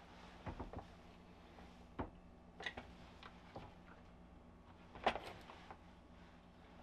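A few light clicks and knocks of small things being handled during wiring work, the sharpest a little past five seconds in, over a faint steady hum.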